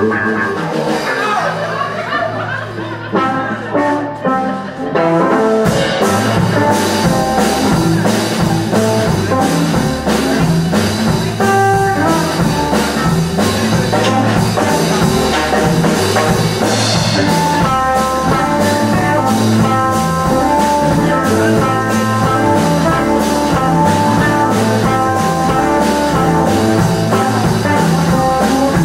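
Live blues-rock band playing: a guitar alone at first, then bass and drums come in with a steady beat about five seconds in.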